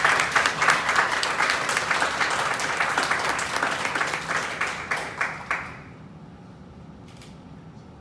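Audience applauding with dense clapping that stops about six seconds in.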